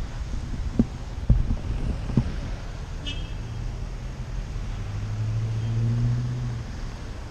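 City road traffic: cars passing with a steady low rumble, and one vehicle's engine hum swelling and fading in the second half. Three sharp knocks come in the first couple of seconds, and a short high beep about three seconds in.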